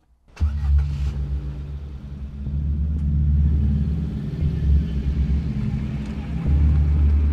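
Ford Fiesta hatchback's engine starting about half a second in, then running steadily with a low hum, its level swelling and dipping as it idles and moves off.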